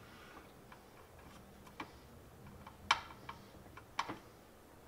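Scattered light clicks and taps from a small right-angle corner clamp being adjusted on the styrene plastic walls of a model kit resting on a glass sheet, with two sharper clicks about three and four seconds in.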